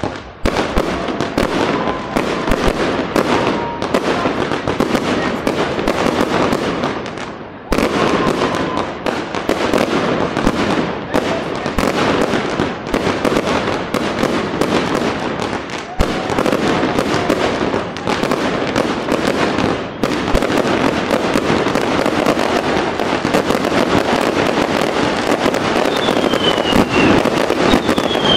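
Fireworks display: ground fountains spraying sparks and aerial shells bursting, a dense, continuous crackling packed with sharp bangs, with a short lull about seven seconds in. A few short falling whistles near the end.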